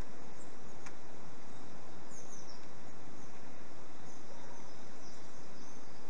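Steady outdoor background noise with a few faint, high bird chirps now and then, and a light click about a second in.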